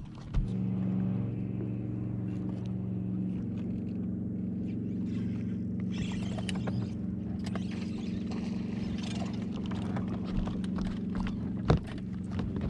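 Bass boat's electric trolling motor humming steadily with a low even tone, switching on just after the start. Scattered clicks and rustles of handling on the deck run through the middle, with one sharp knock near the end.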